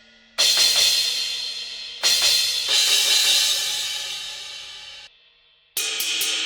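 Sampled drum-kit cymbals from the EZdrummer 3 Drums of Destruction library, struck one at a time: a cymbal hit about half a second in and another about two seconds in, each ringing out and fading, the second cut off suddenly. Near the end a different cymbal is struck a few times in quick succession.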